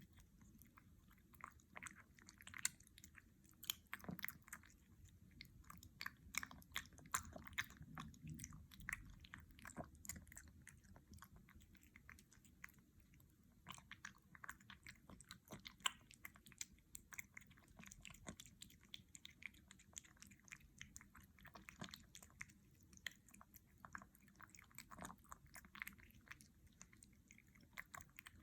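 A kitten chewing and smacking wet cat food, many small irregular wet clicks in quick succession.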